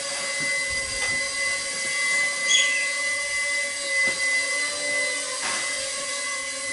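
Walkera QR Ladybird V2 mini quadcopter's small coreless motors and propellers whining steadily in flight, the pitch wavering slightly with throttle changes, heard up close from the craft itself.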